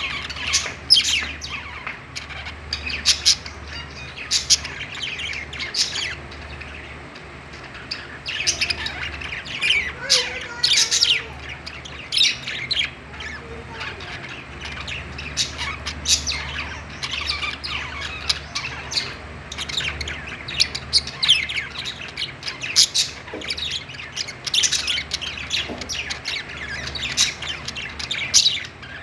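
Several budgerigars chirping and squawking: short, sharp calls in quick, irregular bursts with no pause.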